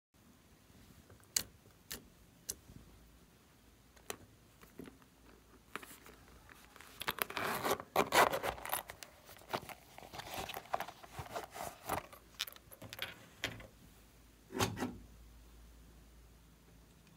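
Zipper on a small pouch being pulled open, with the scraping run of the teeth and the jangle of its small metal pull, loudest about eight seconds in. Light clicks of handling come before it, and a short knock near the end.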